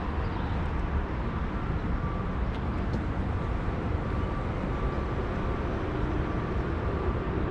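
Steady road traffic noise, a continuous low rumble with no single passing vehicle standing out.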